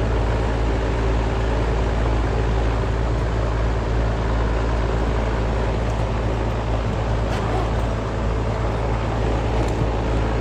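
Steady electrical hum of a central air conditioner's outdoor condensing unit, with a few light clicks of tool handling in the second half.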